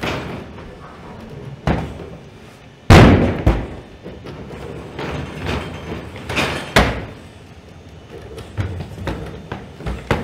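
Boston Dynamics Atlas humanoid robot and a large plywood box striking scaffold planks and the floor: a run of hollow thuds and knocks. The loudest comes about three seconds in, when the box drops from the scaffold to the floor.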